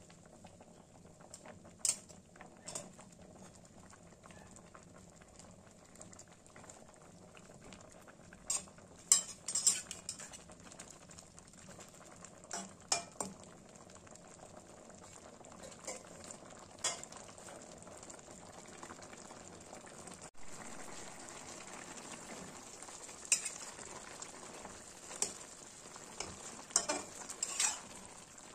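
Slotted metal spatula clinking and scraping against a metal wok as pumpkin curry is stirred, with sharp knocks at irregular moments. Under it the curry bubbles and sizzles in its own liquid, louder in the second half.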